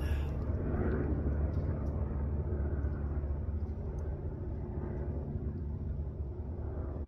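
A steady low rumble with a faint hum, even throughout.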